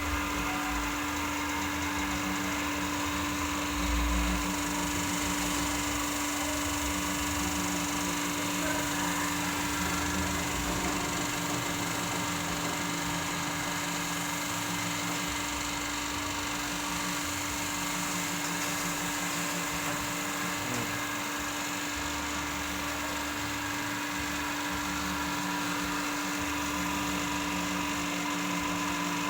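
CNC pipe bending machine running: a steady motor hum with a constant tone, under a low rumble that shifts in level as the machine moves through its bending cycle, with a brief louder bump about four seconds in.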